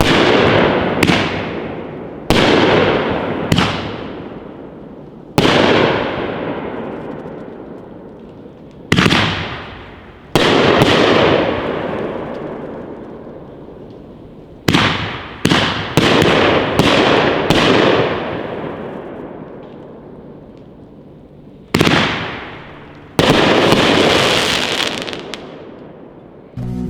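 A 15-shot 500-gram consumer fireworks cake firing its shells, which burst into willow, strobe and crackle effects. The booms come in uneven clusters, some singly and some several in quick succession, and each leaves a long fading crackling hiss.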